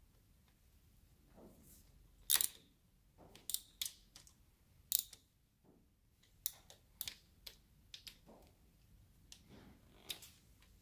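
Irregular light metallic clicks of a wrench and feeler gauge on the rocker arm poly lock nuts of a small block Chevy as the valve lash is set.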